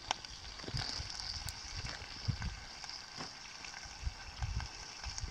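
Scattered light clicks and scrapes of a knife against a metal pan while meat is cut and eaten, with a few low thumps.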